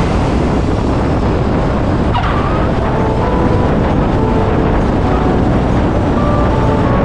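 Steady engine and rushing wind noise from a 1978 Cessna 172's four-cylinder engine and airframe as the plane rolls down the runway.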